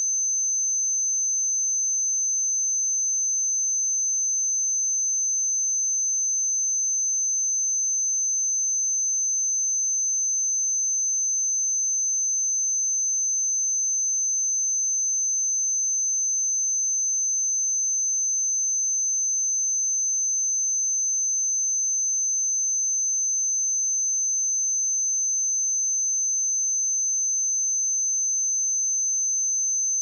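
A steady, high-pitched 6187 Hz sine-wave test tone, one pure unchanging pitch held at an even level.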